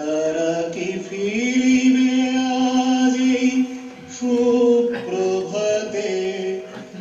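Vocal chanting in long held notes, each sustained for a second or more before moving to another pitch.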